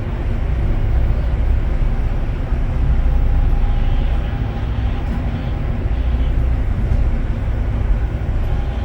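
Tour boat under way: the engines make a steady, loud low rumble with a rushing noise over it.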